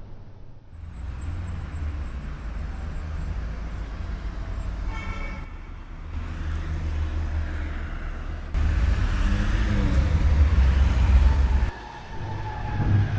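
City street traffic: a steady low rumble of cars and buses, with a short horn toot about five seconds in. The rumble grows much louder about two-thirds of the way through, then cuts off suddenly near the end.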